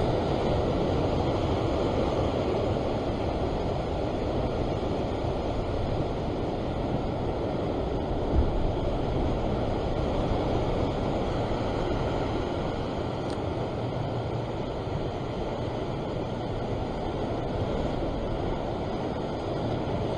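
Rough sea surging and washing against a rocky shore: a steady rushing wash, with one short low bump about eight seconds in.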